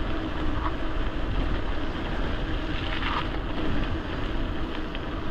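Wind rushing over an action camera's microphone on a moving gravel bike: a steady, loud rush strongest in the low end.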